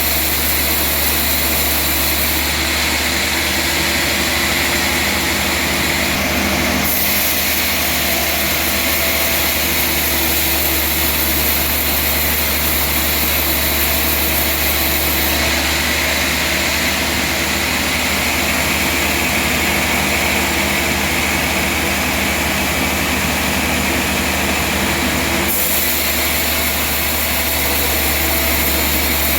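Band sawmill machinery running steadily, a constant loud mechanical drone. The sound shifts abruptly about seven seconds in and again near the end.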